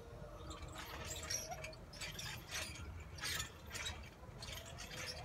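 Outdoor elliptical-style exercise machine in use, its handles and pedal linkage giving a faint, repeating series of short mechanical creaks and clicks, about two a second.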